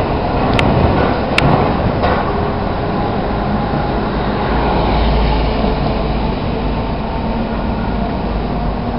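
Sapporo streetcar running on its rails: a steady rumble, with a couple of sharp clicks about half a second and a second and a half in.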